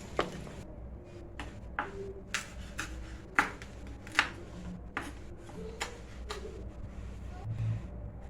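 Irregular clicks and knocks of kitchen handling during food preparation, two of them sharper about three and four seconds in, over a low steady background hum.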